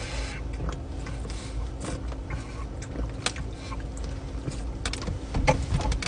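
A person gulping soda from a plastic bottle: scattered swallowing clicks and plastic crackles over a low steady hum.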